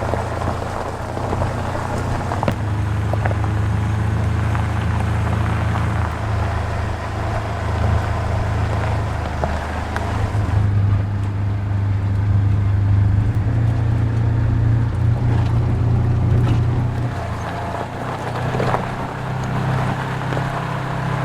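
Polaris side-by-side engine running as the vehicle drives along a dirt trail. The steady hum shifts in pitch a few times as the speed changes.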